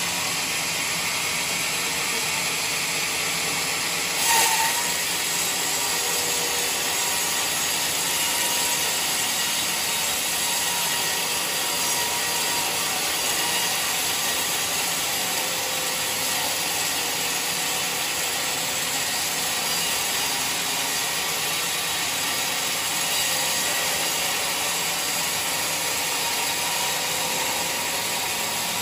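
Band sawmill running, its vertical blade cutting lengthwise through a mahogany log: a steady hiss of sawing, with a brief louder knock about four seconds in.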